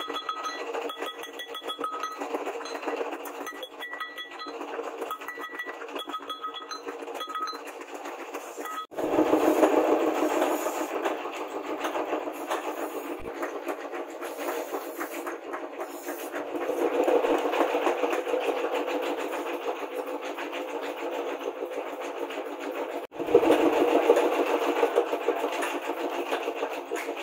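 Small hammer tapping a forged rebar fishing spear on a wooden block, each strike ringing with a metallic tone, for about nine seconds. After that, a steady rough scraping noise, which near the end is a machete blade working a bamboo pole.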